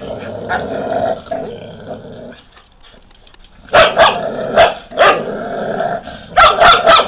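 Šarplaninac puppies growling at first, then a few loud, sharp barks from about four seconds in and a quick run of barks near the end.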